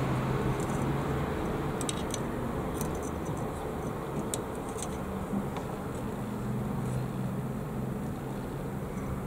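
A steady low motor hum, holding one pitch, with a few faint light clicks over it.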